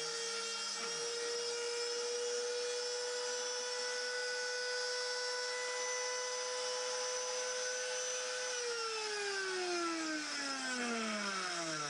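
Router spindle of a Sienci Mill One desktop CNC running at a steady high-pitched whine with its bit in an aluminum sheet. About two-thirds of the way through it spins down, the pitch falling steadily as the motor slows.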